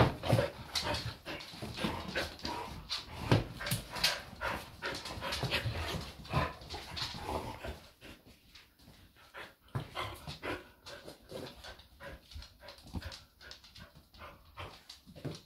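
Dogs moving about on a hardwood floor near their empty steel food bowls. A dense run of clicks and knocks thins out and grows quieter about eight seconds in.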